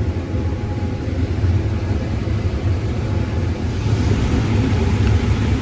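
Case IH combine harvester running steadily while harvesting corn: a continuous low rumble with a hiss of machinery over it.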